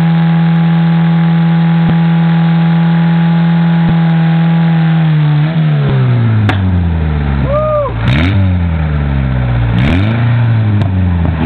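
Lada car engine held at steady high revs during a burnout, then about five seconds in the revs drop and swing up and down repeatedly as the throttle is worked.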